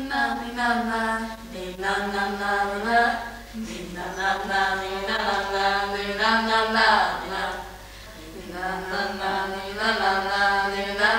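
Voices singing a slow melody in long held notes, phrase by phrase with short breaks, over a steady lower note; the loudness dips briefly past the middle before the singing resumes.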